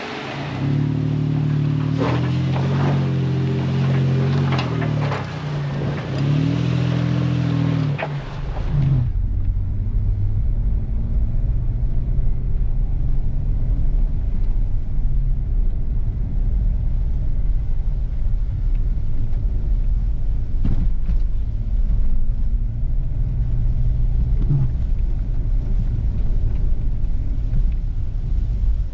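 A four-wheel-drive vehicle's engine revving, its pitch rising and falling over several pulls with a few sharp clicks, for about the first eight seconds; then the sound changes abruptly to a steady low rumble of the vehicle driving.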